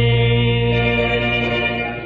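Hymn music holding one long, steady chord that fades a little near the end.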